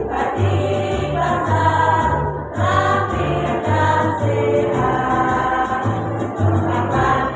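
Women's choir singing a song together over an accompaniment with a steady low bass line, the bass note changing about every half second.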